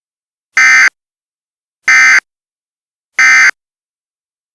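Emergency Alert System end-of-message data tones: three short, loud bursts of digital data signal about a second apart, marking the close of the alert.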